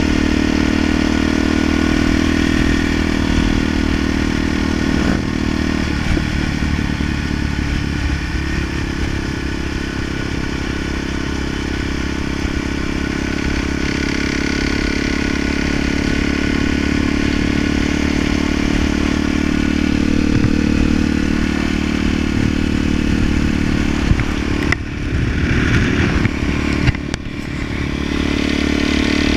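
Dirt bike engine running steadily at cruising speed on the road. The engine note dips briefly about six seconds in and breaks up twice near the end.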